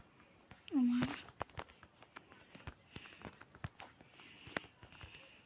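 Scattered short clicks and knocks, with a brief voiced sound of falling pitch about a second in.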